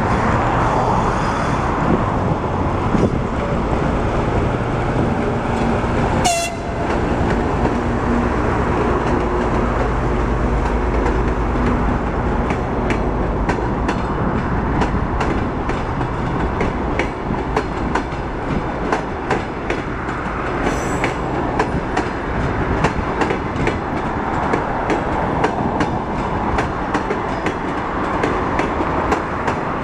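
TEP70 diesel locomotive's 16-cylinder engine running under load as it pulls a passenger train away, a low drone over the first dozen seconds, with one short sharp sound about six seconds in. Then the passing coaches' wheels clatter over the rail joints in a steady clickety-clack.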